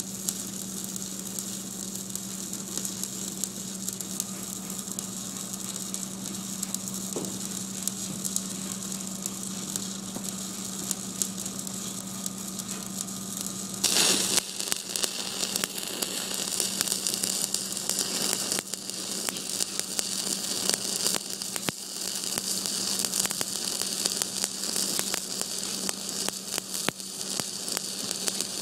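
A steady hum with a light hiss, then about halfway through an electric welding arc strikes and runs on, crackling and sizzling, louder than the hum.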